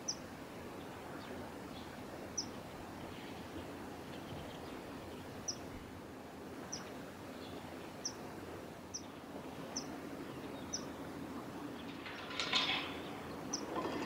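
Common kingfisher giving short, sharp, high-pitched single calls, about nine spaced irregularly, each dropping slightly in pitch, over a steady background hiss. A brief louder burst of noise comes near the end.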